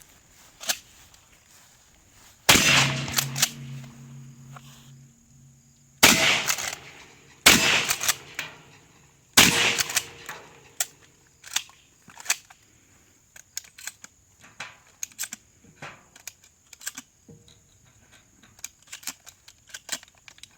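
Four shotgun shots, spaced about one to three and a half seconds apart; the first is followed by a low ring lasting about two seconds. After the last shot come scattered light clicks and taps.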